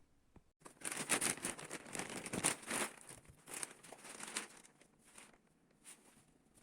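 Crinkling, rustling handling noise for about four seconds, then a few faint clicks.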